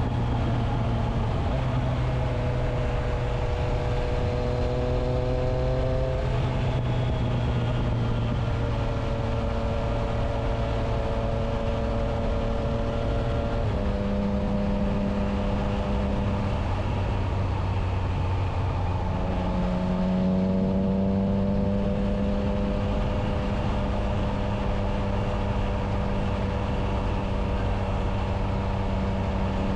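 Triumph Trident 660's inline three-cylinder engine running through a Spark aftermarket exhaust with its dB killer fitted, under way at steady throttle. The engine pitch rises slowly and steps down a few times, about six, fourteen and nineteen seconds in.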